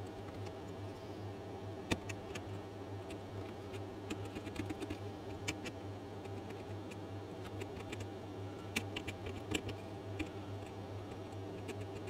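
Mini carving chisel cutting small chips out of a wood block: irregular sharp clicks and light scraping, the loudest click about two seconds in. A steady low hum runs underneath.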